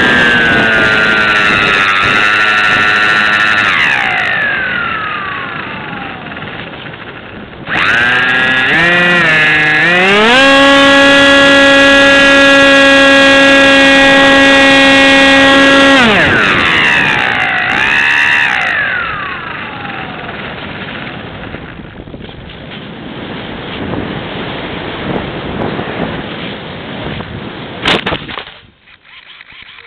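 An RC model plane's motor and propeller heard from on board, the pitch rising and falling with the throttle. Near the middle it holds steady at full throttle for about five seconds, then drops to a fainter glide with air noise. A sharp knock near the end comes as the plane touches down on grass.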